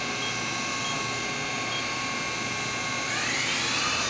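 Matsuura MC-600V vertical machining center's geared spindle running in high gear with a steady whine. About three seconds in it starts speeding up, the whine rising in pitch, as it steps up toward 5,000 RPM.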